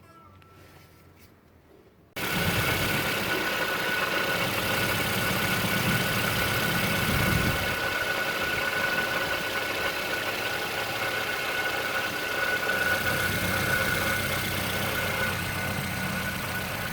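2007 Toyota Yaris engine running at idle, coming in suddenly about two seconds in, with a steady high whine over a grinding noise that the owner suspects comes from the water pump.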